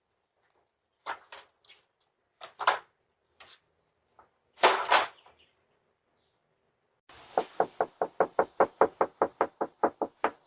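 Knocking on a door: a few scattered knocks and one louder bang, then a fast, even run of about twenty knocks, roughly seven a second, for about three seconds near the end.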